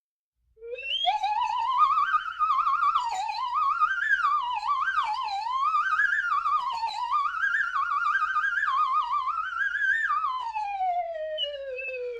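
Slide whistle played wildly: starting about half a second in, its tone slides up from low, then swoops up and down with a fast warble for several seconds. About ten seconds in it glides slowly down to a low note.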